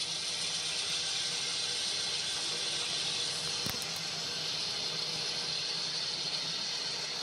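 Amtrak passenger train's coaches rolling past at close range: a steady rushing hiss of wheels on the rails.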